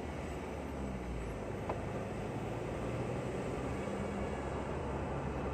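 Steady car engine and tyre noise heard from inside the cabin as the car drives along, with one brief click about a second and a half in.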